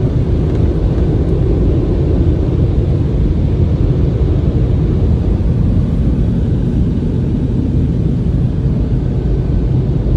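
Touchless car wash equipment heard from inside the car's cabin: a steady, loud rushing noise with no breaks.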